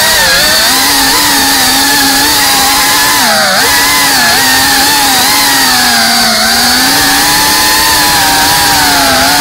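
FPV quadcopter's brushless motors and propellers whining, heard from the onboard camera. The pitch dips briefly with throttle changes four times, about every three seconds, and climbs back each time.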